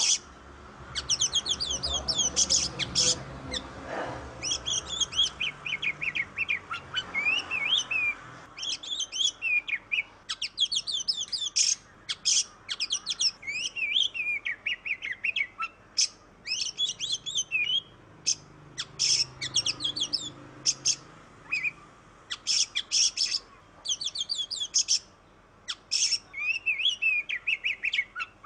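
Oriental magpie-robin (kacer) singing vigorously: a long run of rapid, varied whistles and chattering phrases with only short breaks.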